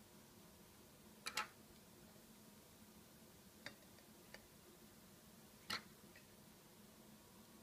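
Near silence broken by a few sharp clicks from small scissors snipping a slice of ham and being set down on a wooden table: a pair just over a second in, two faint ones around four seconds, and a louder one near six seconds.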